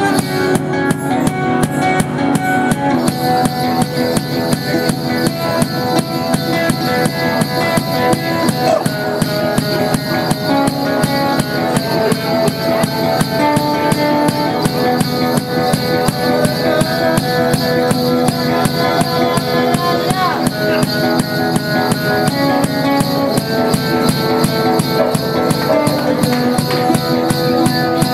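One-man street band: a didgeridoo drone under acoustic guitar notes, with a quick, steady drum beat. A high, hissing shimmer joins about three seconds in.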